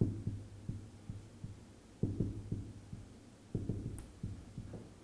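Marker writing on a whiteboard: a run of irregular soft knocks and taps of the pen against the board, several a second, with pauses between strokes.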